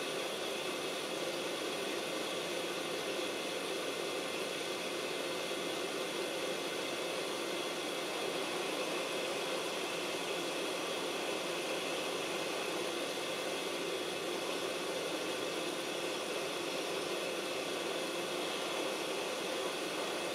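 YiHua 853D hot air rework gun blowing steadily, a constant rush of air from its fan, while it heats a tiny surface-mount capacitor to desolder it.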